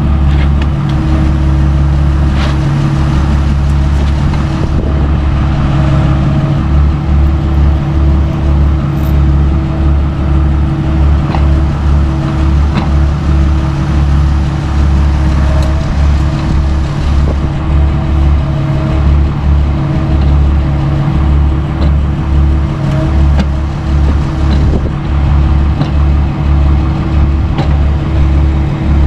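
Heavy diesel machinery engine running steadily under light load, with a few faint clanks over it.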